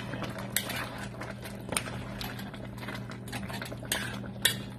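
A spoon stirring chunks of squash and pork through a thick coconut-milk stew in a metal pot, with several sharp clinks against the pot, over a steady low hum.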